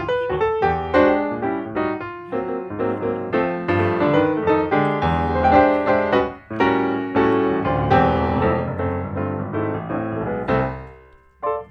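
Background piano music, a quick flowing run of notes, fading out near the end.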